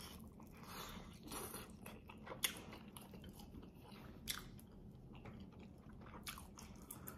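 Close-up eating sounds of a person biting and chewing saucy chicken on the bone: faint, wet chewing with scattered sharp crunchy clicks, two of them clearer, about two and a half and four seconds in.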